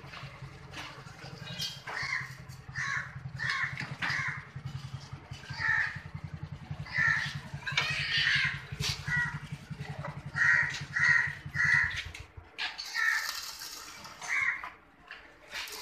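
Birds calling over and over in short calls, over a low steady hum that stops about twelve seconds in. Near the end comes a brief hissing crackle of an electric welding arc being struck.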